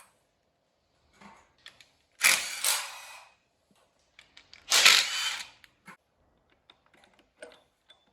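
Power tool spinning in two short bursts of about a second each, undoing the bolts of an LT4 V8's oil pump, with small clicks and knocks of parts being handled between them.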